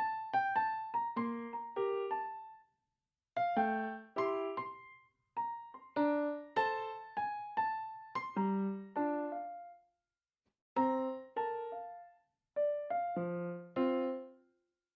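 Background music: a simple piano-like keyboard melody of single struck notes that die away, played in short phrases with brief pauses between them.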